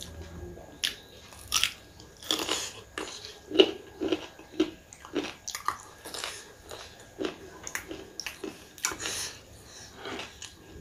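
A person biting and chewing food with irregular wet mouth smacks and small crunches.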